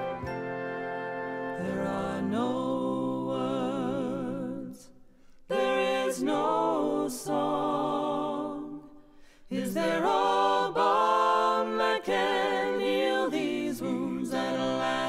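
Song with sung voices holding long, wavering notes over accompaniment, in three phrases with short breaks about five and nine seconds in.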